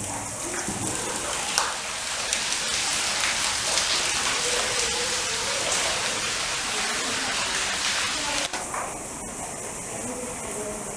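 Constantly running water splashing and dripping: a steady hiss that grows fuller and a little louder from about a second and a half in, then drops back about eight and a half seconds in.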